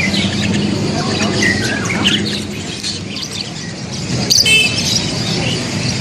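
A dense chorus of many caged birds chirping and calling, with one louder, sharper call a little after four seconds in.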